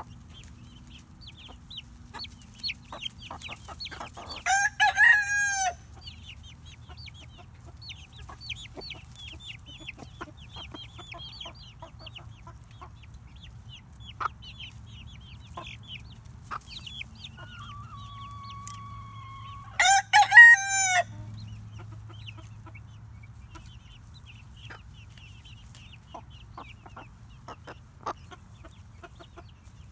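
Chickens clucking with many short, falling calls throughout, and a rooster crowing loudly twice, about five seconds in and again about twenty seconds in.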